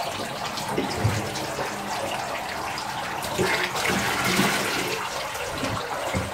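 Water running and splashing in a bathtub as a dog is washed, with a few soft knocks.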